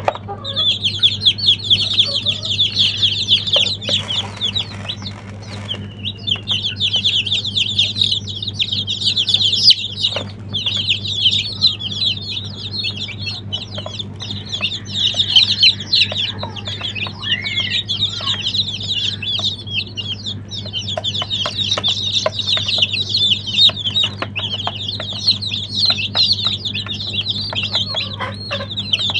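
A crowd of baby chicks peeping, many high, rapid chirps overlapping almost without a break, with a steady low hum underneath.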